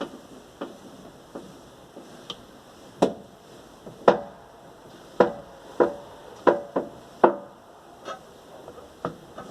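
Knocking under the hood of a VAZ 21099 as the steering is turned: a run of sharp, irregular clunks, the loudest bunched in the middle. The owner suspects a worn steering rack.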